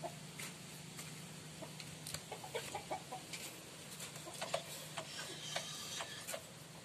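Chickens clucking in short bursts, with faint clicks of metal parts being handled.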